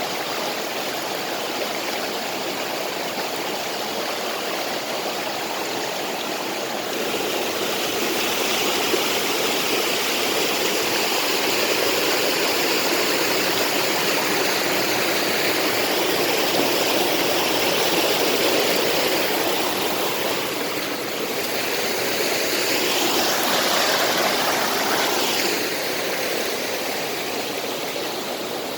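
Creek water rushing over rocks in a steady, loud rush. It swells about a quarter of the way in and eases again near the end.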